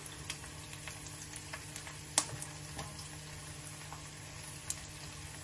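Eggs frying in a pan, a gentle sizzle with scattered small pops and one sharper pop a little past two seconds in, over a steady low hum.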